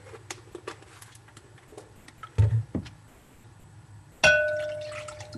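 Kitchenware knocked on a counter: two dull knocks about halfway through, then a sharp clang a little after four seconds that rings on and dies away over about a second.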